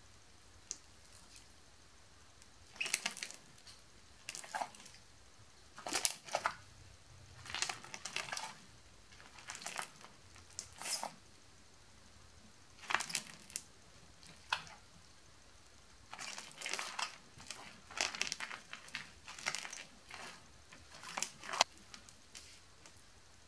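Bead-studded slime pressed flat under a bare hand and pulled back up, crackling and popping in short bursts every second or two.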